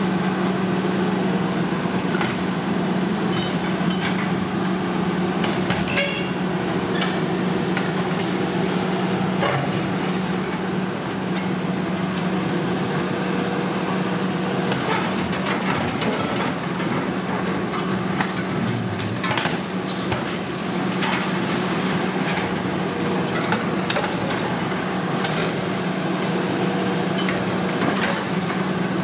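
Diesel engine of a Volvo EC480E HR high-reach demolition excavator running steadily with a constant hum while its demolition grapple crushes and tears the thin steel skin of a toppled silo, giving scattered metallic crunches, creaks and clanks.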